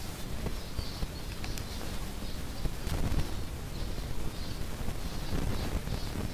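Many small finches chirping, with short high calls scattered all through, over a steady low rumble.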